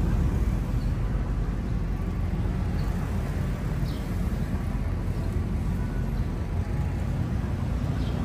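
Outdoor city street ambience: a steady low rumble of traffic, with a few faint short high chirps.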